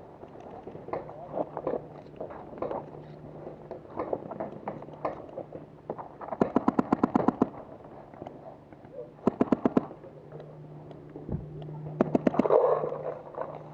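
Paintball markers firing rapid strings of shots, about ten a second: a long string of about a dozen shots, a shorter string of about six, then a brief burst near the end, with fainter scattered shots in between.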